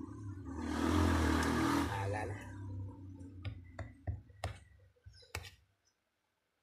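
A vehicle going past, swelling and fading over the first two seconds. Then a metal spoon clinks against the plate about five times while scooping rice.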